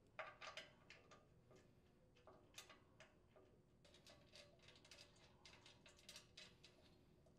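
Faint, irregular small metallic clicks and ticks of mounting screws with washers being threaded by hand into the chipper shredder's metal flail housing, a cluster of sharper clicks just after the start.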